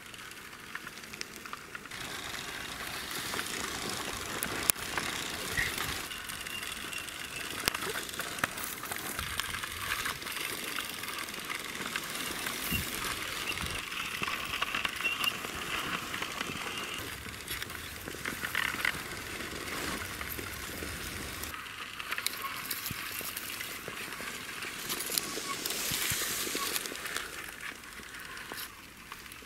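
Die-cast Lada Niva toy car pushed by hand over dry, sandy dirt: its plastic wheels crunch and scrape through the loose grit, with many small clicks from grains and pebbles.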